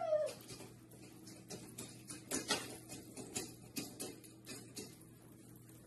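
A cat's short meow, falling in pitch, at the very start. Then come faint, irregular clicks and taps over a steady low hum.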